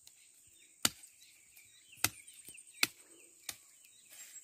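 A machete chopping at dry weeds and brush at ground level: four sharp strikes at uneven intervals.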